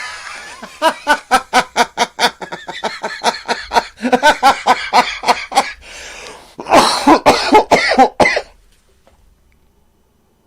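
A man laughing hard and uncontrollably in three bouts of rapid pitched pulses, about five a second, with short breaths between, stopping about two seconds before the end.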